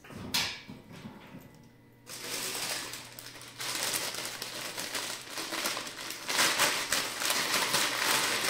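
Plastic packaging crinkling and rustling in the hands as a new diathermy handpiece is unwrapped from its bag, starting about two seconds in and going on busily after that.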